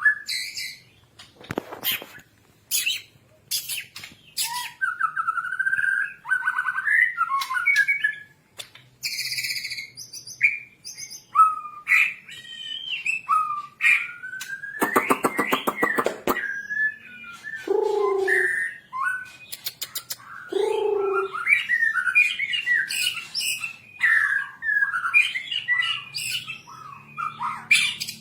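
White-rumped shama singing a long, varied song of clear whistles, chirps and short trills, with a fast buzzy rattle about halfway through and a couple of lower, rougher notes soon after.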